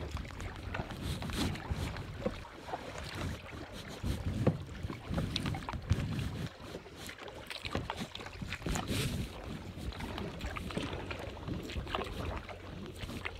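Kayak paddle strokes splashing in calm water, in irregular, uneven splashes, with wind rumbling on the microphone.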